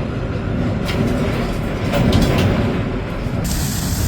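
Thunderstorm noise: a steady low rumble with a few sharp cracks, growing loudest about halfway through. About three and a half seconds in, a steady hiss of heavy rain suddenly joins it.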